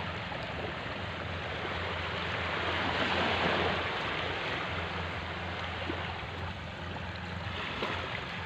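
Surf washing on a sandy beach: a steady rush of waves that swells about three seconds in and eases off again.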